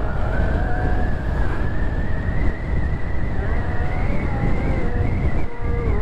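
Motorcycle engine running under way, its pitch rising slowly as the bike speeds up and dropping back near the end, over steady wind rumble on the microphone.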